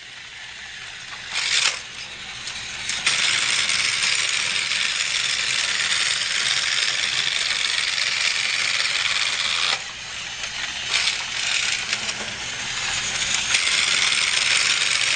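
Battery-powered TOMY Trackmaster toy train running along its plastic track, a steady rattling whirr. It grows fuller about three seconds in and dips briefly near ten seconds before carrying on.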